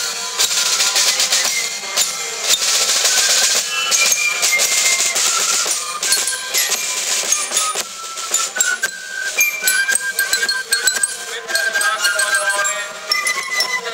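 Marching band playing outdoors: drums and cymbals at first, with a high melody line coming in around halfway through.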